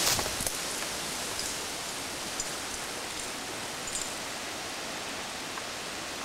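Steady hiss of outdoor woodland ambience picked up by a camcorder microphone, with a few faint ticks scattered through it.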